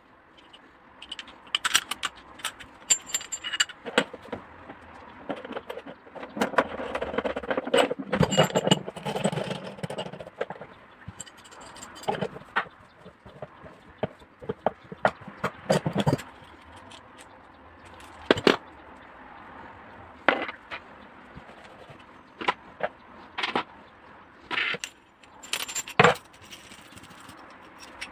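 Metal tools and washing machine parts clinking, knocking and scraping as they are handled, in irregular sharp strikes. A denser stretch of rattling and scraping comes about a quarter of the way in.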